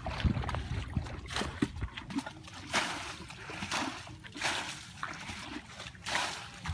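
Shallow muddy water splashing and sloshing as it is stirred by feet and hands, in short splashes about once a second.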